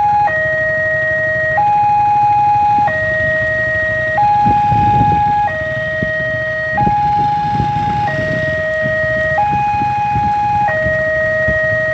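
Railway level-crossing warning alarm sounding a steady two-note high-low tone, each note held about a second and a half, signalling that the barrier is down for an approaching train. The low rumble of waiting motorcycle engines runs underneath.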